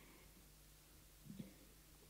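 Near silence: a faint steady low hum of room tone, with a couple of tiny faint clicks about a second and a half in.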